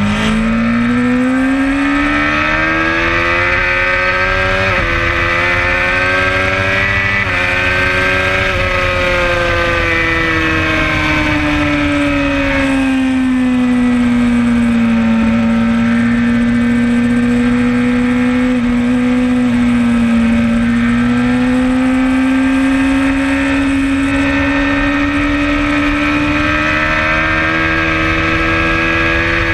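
Suzuki GSX-R600 K4 sport bike's inline-four engine with an aftermarket Werx exhaust, heard from onboard while lapping a track: the engine note climbs over the first several seconds with a couple of brief dips, falls away from about nine seconds in, holds lower through the middle and climbs again towards the end. The throttle is restricted to three-quarters opening.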